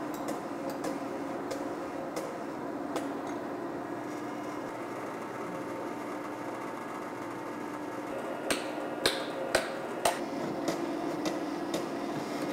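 Shop hydraulic press running with a steady hum while a wooden handle is pressed into a forged axe head's eye. A few sharp knocks come about eight to ten seconds in as the handle seats.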